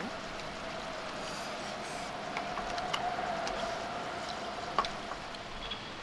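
Steady outdoor background hiss with a faint hum, broken by a few light clicks of chopsticks against a plate.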